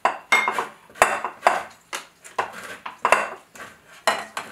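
An orange being rubbed across a metal hand grater to zest it: a rhythmic scraping of short, uneven strokes, about two to three a second.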